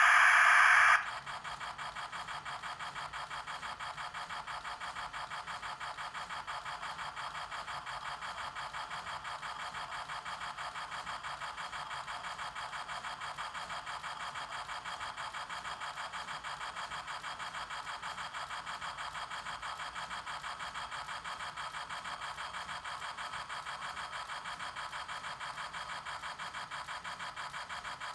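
Lionel BR-50 O-scale steam locomotive model running in place, giving a steady, rapid, rhythmic hiss after a short loud blast at the start.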